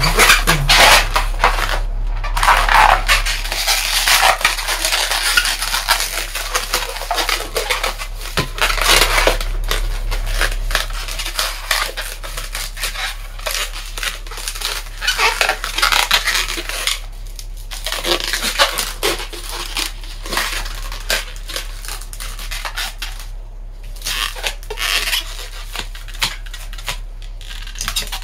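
Long latex modelling balloons being twisted, bent and handled, rubbing and squeaking against each other and the hands in a dense, irregular run, with a few short pauses.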